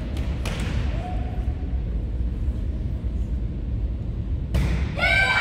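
Steady low rumble of gymnasium ambience with one sharp hit about four and a half seconds in. Right after it, spectators break into high-pitched cheering and shouting near the end, as a volleyball point is won.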